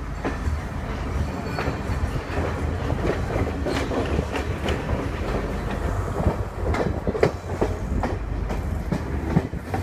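Passenger train running, heard from aboard: a steady low rumble of the wheels on the track with irregular clacks and knocks, the sharpest one about seven seconds in.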